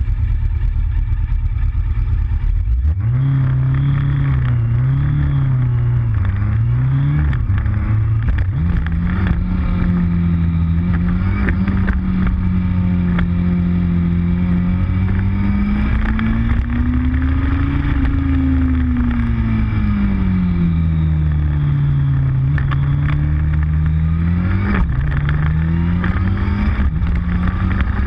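Motorcycle engine heard from an onboard camera: a low rumble at a standstill, then about three seconds in it pulls away, its pitch climbing and dropping through several quick gear changes before running on at speed with the note rising and falling slowly.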